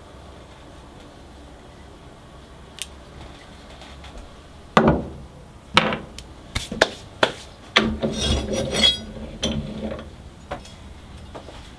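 Workshop handling noise: after a few quiet seconds, a run of sharp clicks and knocks, with a short rattling scrape about eight seconds in.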